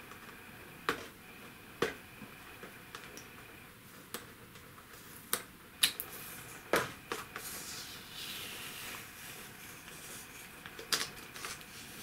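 A few scattered sharp clicks and a stretch of light scratching in the middle as an age-rating sticker is picked and peeled off a metal steelbook disc case.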